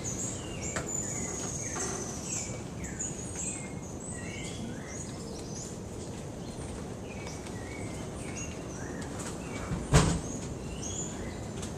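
Many short, high-pitched chirps and downward-sliding whistled calls from animals in the rainforest canopy, scattered over a steady background hiss. A single loud thump about ten seconds in.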